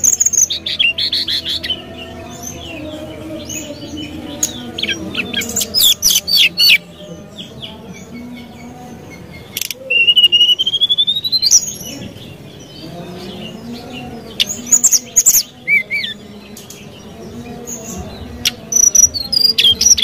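Brown-chested jungle flycatcher singing in bursts every few seconds: sharp, quick chirping phrases, and about ten seconds in, a long whistle that rises steadily in pitch.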